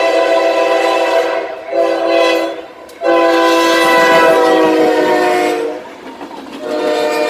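CSX freight locomotive's air horn sounding its chord in a series of blasts. A long blast breaks off about a second and a half in, a shorter blast follows, then a long one runs from about three seconds to nearly six, and another begins just before the end.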